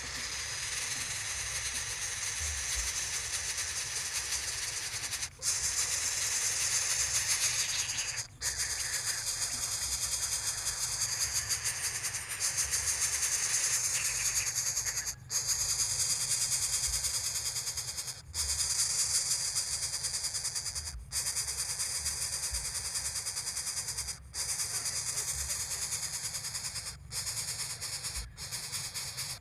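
A steady high-pitched hissing drone, broken by short dropouts every few seconds.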